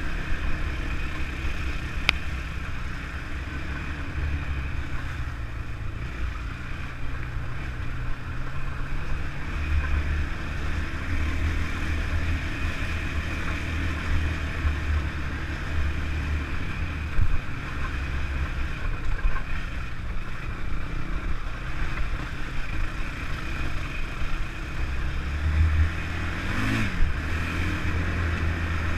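A 2003 Honda TRX450R sport quad's single-cylinder four-stroke engine running on a dirt trail, its note swelling and easing with the throttle.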